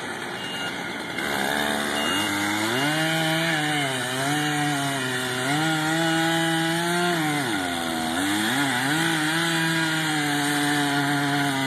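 Chainsaw revving up about a second in and cutting into a large willow trunk, its engine pitch rising and sagging as the chain takes the load of the wood.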